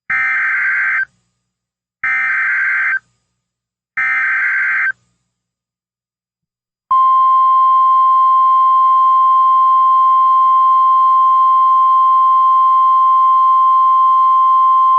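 NOAA Weather Radio emergency alert: the SAME digital header, three one-second bursts of screeching data tones two seconds apart, then about seven seconds in the steady 1050 Hz warning alarm tone, the signal that a tornado warning is being broadcast.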